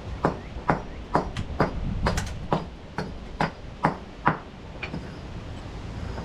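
A hammer striking repeatedly in a steady rhythm, about two blows a second, roughly ten in all, stopping about four and a half seconds in. A low steady rumble runs underneath.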